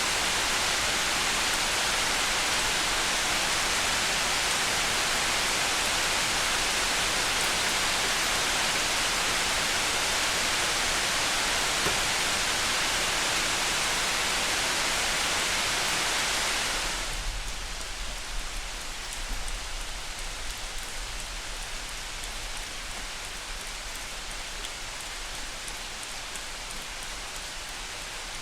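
Steady rain, a dense even hiss that drops suddenly about two-thirds of the way through to quieter, lighter rain.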